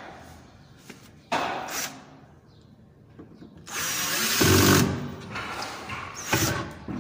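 Power drill driving screws to tighten a bar handle onto a cabinet drawer front. It runs in short bursts: a brief one about a second in, a longer one around four seconds in, and another short one near the end.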